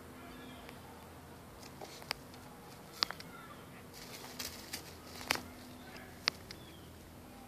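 Puppy pawing and digging in loose garden soil: scattered scratches and a few sharp scrapes and taps. Faint bird calls underneath.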